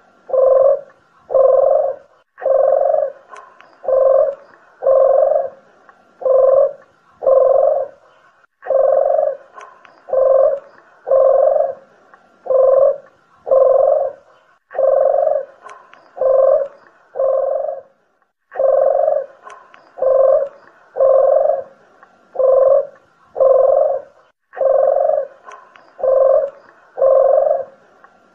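Collared doves (puter and dederuk jawa) cooing in long runs of evenly spaced coos, about one a second, each run of five or six broken by a short pause.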